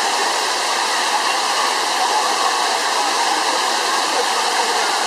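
Waterfall cascade rushing steadily, a loud even roar of falling water.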